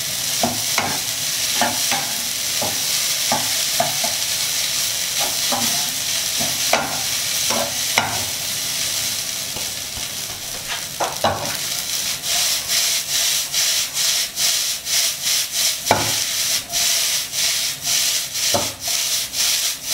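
Rice mixed with shrimp paste sizzling in a hot oiled nonstick pan while a wooden spatula stirs, scrapes and knocks it. About twelve seconds in, the strokes turn faster and more regular, about two to three a second. The rice is being fried dry over high heat so the shrimp-paste liquid cooks off.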